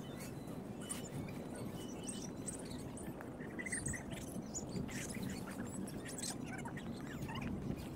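Small birds chirping now and then over a steady low background rumble, with short rustles of thin nylon tent fabric being handled and spread out.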